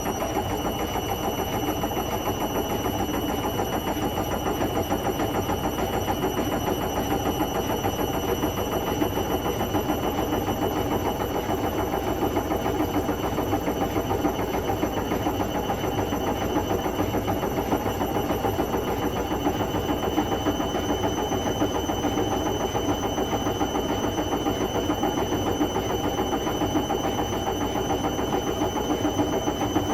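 Indesit Moon SIXL145 front-loading washing machine spinning steadily, a dense rumble with a constant high-pitched whine over it.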